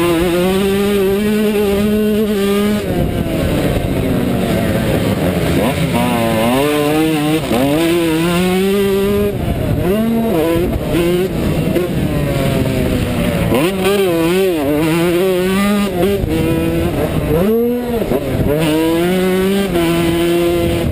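Yamaha YZ125 two-stroke motocross engine under hard riding, heard close up from on the bike: it revs up, drops off sharply and revs up again many times as the rider shifts and rolls off for corners.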